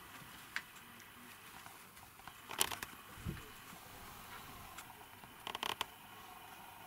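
A cat moving along a cluttered shelf among plastic bags: faint scattered rustles and light clicks, with a louder crackle about two and a half seconds in and a quick run of small clicks near six seconds.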